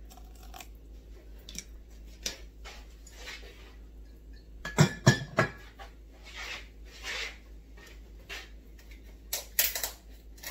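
Kitchen handling sounds: scattered knocks and clinks of containers and kitchenware being picked up and set down, with the loudest cluster about five seconds in and another near the end.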